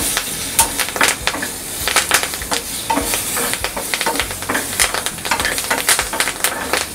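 Fresh curry leaves sizzling and crackling in hot ghee with cumin and crushed black pepper, with many sharp, irregular pops, while a steel spoon stirs them round a small pan.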